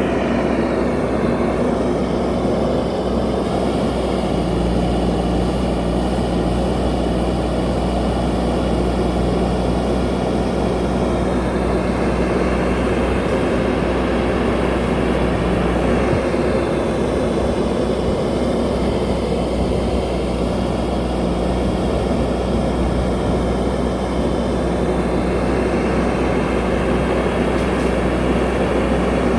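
JCB backhoe loader's diesel engine running steadily while working, its pitch drifting up and down a little now and then.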